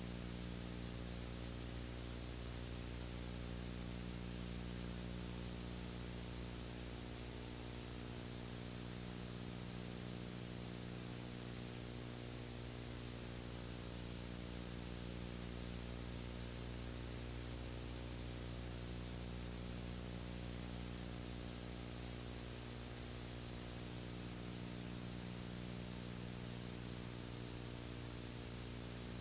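Steady hiss with a low electrical hum and its overtones, unchanging throughout; no other sound.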